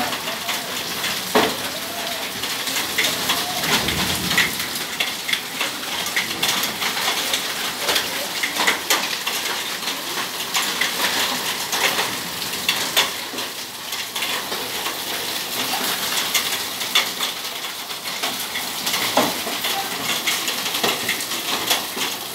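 Hail and heavy rain coming down, a steady hiss full of dense sharp ticks and clicks as hailstones strike hard surfaces.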